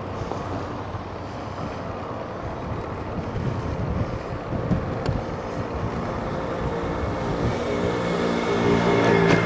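Road traffic noise with wind on the microphone. Near the end an engine draws close and grows steadily louder, its hum at its loudest just before the end.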